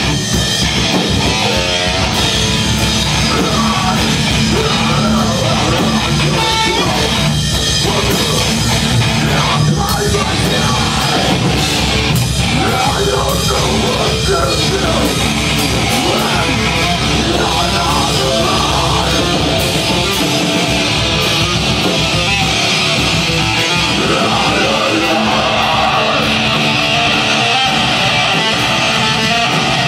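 Metal/hardcore band playing live: electric guitars over a drum kit, loud and unbroken.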